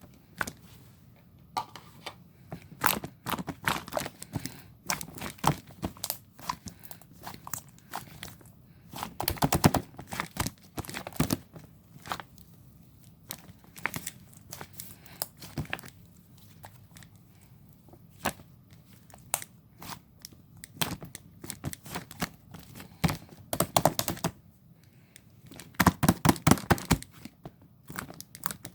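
Slime being pressed, poked and stretched by hand, making an irregular run of sharp sticky clicks and crackles. Denser bursts of crackling come about a third of the way in and again near the end.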